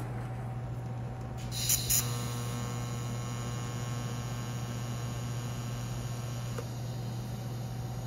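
TIG welder arc: two sharp crackles about two seconds in as the arc strikes, then a steady pitched buzz for about four and a half seconds that stops with a small click, over a constant low hum.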